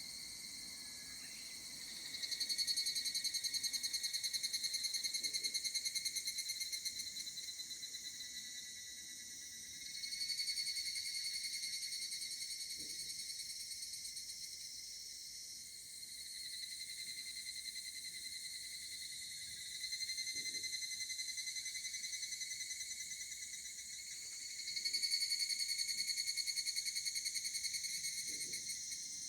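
Higurashi evening cicadas (Tanna japonensis) calling: rapid, high, pulsing trills. Each call starts suddenly and fades over several seconds, and new calls come in several times, overlapping one another.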